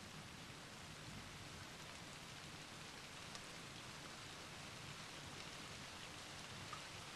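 Faint, steady rain falling during a night thunderstorm.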